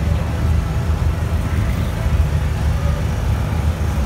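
Steady low rumble of a slowly passing parade float's vehicle, with faint crowd chatter.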